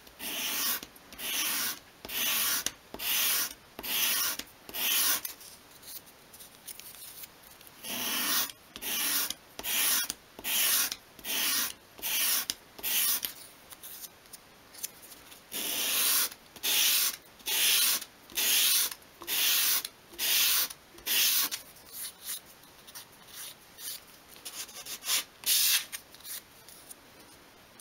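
A thin piece of obeche softwood swept by hand across a sheet of sandpaper in short, even rasping strokes, about one and a half a second, to bevel its edges at 45 degrees. The strokes come in runs of several with pauses between, as the piece is turned to the next edge.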